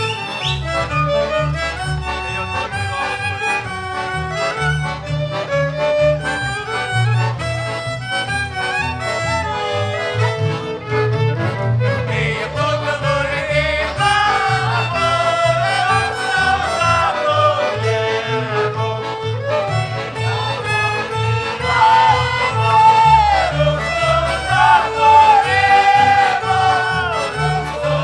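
Slovak folk band of fiddles, accordions and double bass playing a lively tune. A group of voices joins in singing about halfway through.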